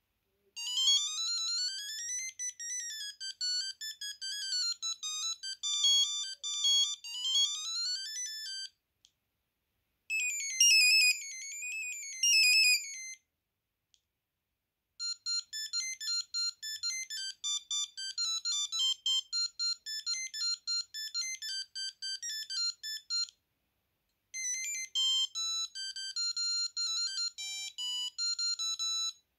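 Sony Ericsson T68i mobile phone playing its built-in electronic ringtones: four different beeping melodies one after another, with brief pauses between them.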